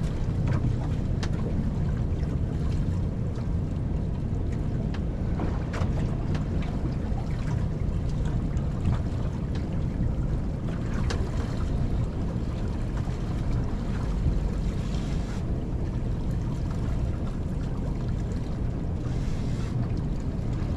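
Steady wind noise on the microphone and water washing against the hull of a small boat, with a few faint clicks.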